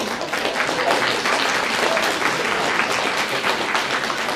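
Audience applauding, a dense and steady run of many hands clapping.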